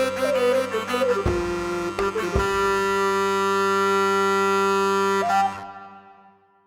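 Background music ending: a few percussive hits, then a final held chord that fades out to silence near the end.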